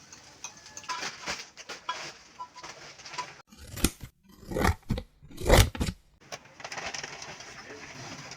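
Small household handling sounds: light clicks and knocks, with three louder rustling, crunching bursts in the middle.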